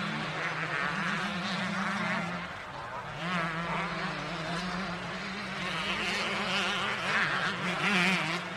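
Motocross dirt bike engine running and revving, its pitch rising and falling repeatedly, with a brief drop in level about two and a half seconds in.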